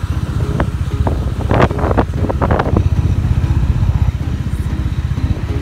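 Road noise from riding a moving scooter: wind buffeting the microphone in a steady low rumble over the running engine, with a few short crackles near the middle.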